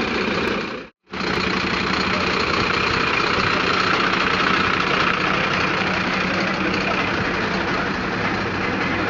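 Diesel engines of fire trucks running steadily, with a low steady hum. The sound cuts out for an instant about a second in, then carries on the same.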